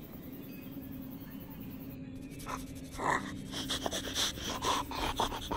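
A steady low hum, then from about three seconds in a person playing a fox makes quick, breathy panting noises, several a second.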